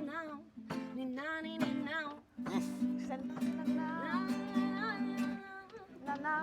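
A voice singing a slow melody with vibrato over acoustic guitar accompaniment.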